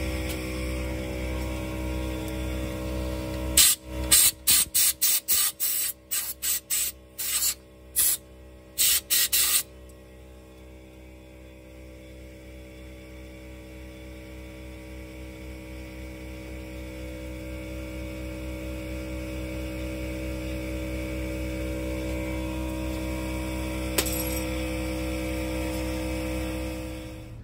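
Compressed-air blow gun firing a quick series of short blasts, about fifteen in six seconds, over the steady hum of a running air compressor. After the blasts the hum is fainter, then grows gradually louder.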